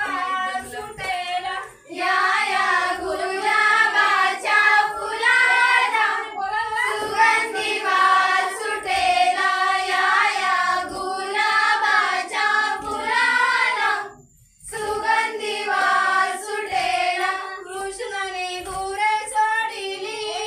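A group of women and girls singing a traditional Ganpati dance song together, several voices in unison with a wavering melody. The singing breaks off briefly about two-thirds of the way through, then carries on.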